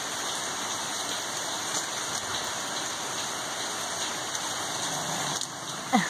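Steady rain falling, an even hiss. Near the end, a short sound drops in pitch.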